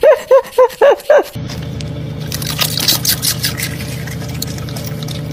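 A cat gives a quick run of about five short meows, each rising and falling in pitch, over the first second or so. Then comes the steady low drone of road noise inside a moving car, with light rustling.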